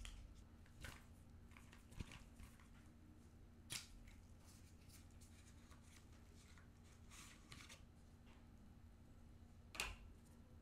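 Quiet handling of photocards and album packaging by gloved hands: scattered soft taps and rustles, a longer rustle about seven seconds in, and the loudest tap near the end.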